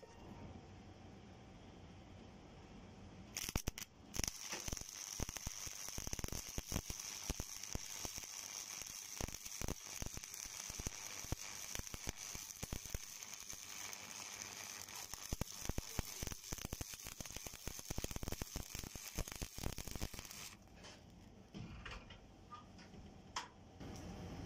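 Stick (shielded metal arc) welding arc on a steel bar: the electrode strikes about three and a half seconds in with a short sputter, then the arc burns with a steady crackle and hiss for about sixteen seconds before cutting off suddenly.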